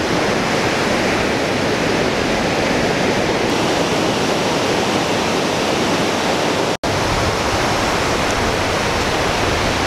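Ocean surf breaking and washing up a sandy beach: a steady, loud rushing noise that cuts out for an instant about seven seconds in.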